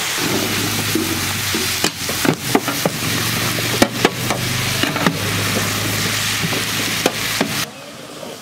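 Diced potatoes sizzling in hot oil in a large shallow steel pan, with long spatulas scraping and knocking against the pan as they are stirred. The sizzling cuts off abruptly near the end.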